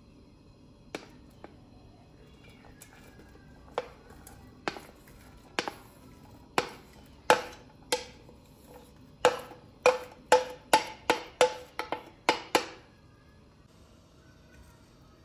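A wooden spoon knocking and scraping chopped onion and red pepper out of a bowl into a pot: about a dozen sharp knocks, each ringing briefly, spaced out at first and coming quicker and louder from about nine seconds in, then stopping.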